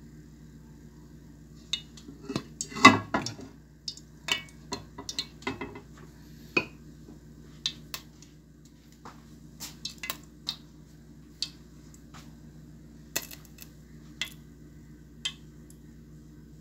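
Irregular clinks and knocks of kitchen utensils against pots and dishes, the loudest cluster about three seconds in, over a steady low hum.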